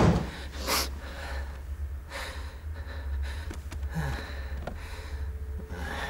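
A man breathing hard with sharp exhales: a loud breath at the start, another just under a second later, then quieter breaths and small movements over a low steady hum.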